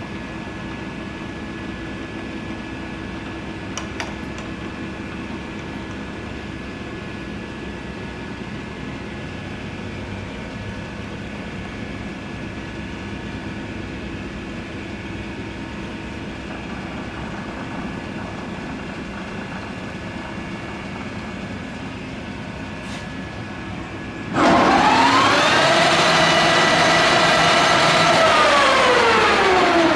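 American Pacemaker engine lathe (10 HP) with a steady low machine hum. About 24 seconds in its geared drive is engaged: a loud gear whine rises in pitch over about a second and holds steady. Near the end it falls in pitch as the drive is released and coasts down.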